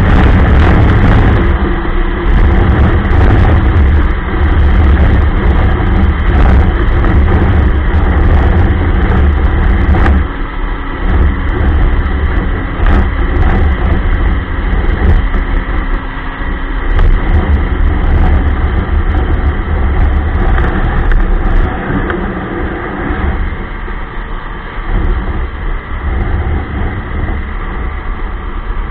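Ski-Doo Expedition LE snowmobile running under way, its engine sound loud and continuous and easing off a little about ten seconds in and again near the end, with scattered short clicks over it.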